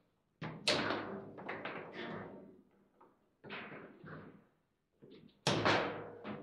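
Foosball table in play: an irregular string of sharp knocks and clacks as the ball is struck by the figures on the rods and bounces off the table, the loudest about a second in and again near the end.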